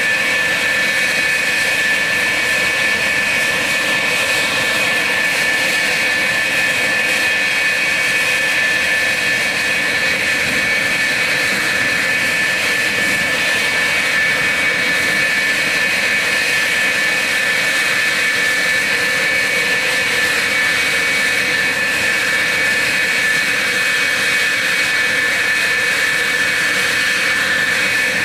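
F-4F Phantom's twin J79 turbojets running steadily on the ground: a continuous jet roar with a steady high-pitched whine.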